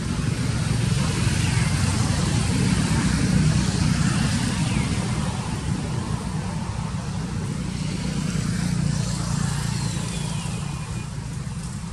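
A steady low rumble, slightly louder in the first few seconds and easing toward the end, with a few faint, short, falling bird chirps over it.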